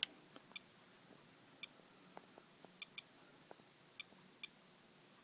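Handheld radiation detector (Geiger counter) giving faint, short electronic pips at irregular intervals, some in quick pairs, each marking a detected count. It is sitting on a paper towel wiped from a rain-wet car.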